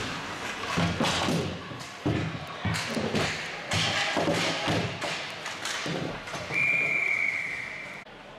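Ice hockey play along the boards: a run of knocks and thuds from sticks, skates and bodies hitting the boards, then a referee's whistle blowing one steady note for about a second and a half near the end, stopping play.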